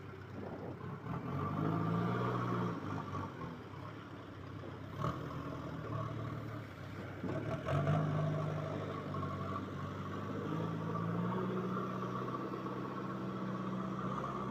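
JCB backhoe loader's diesel engine running and revving up several times as it works, with sharp knocks about five and eight seconds in.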